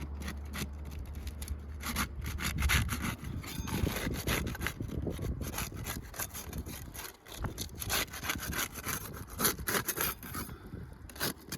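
Quick, irregular scraping strokes of a flat bar worked back and forth under asphalt roof shingles, breaking the shingles' sealant bond, with a brief lull about seven seconds in.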